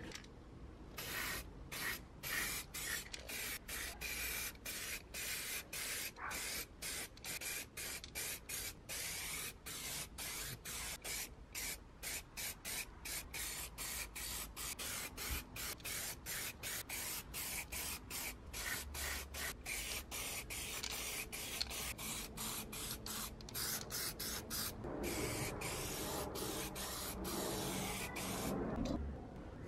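Aerosol can of filler primer spraying in many short hissing bursts, about two a second, then one longer continuous spray over the last few seconds that cuts off just before the end.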